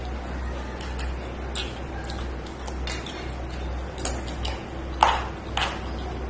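Close-miked eating by hand: fingers working rice and curry on a steel plate, and wet mouth sounds, heard as a series of short sharp clicks. The loudest click, about five seconds in, rings briefly. A steady low hum sits underneath.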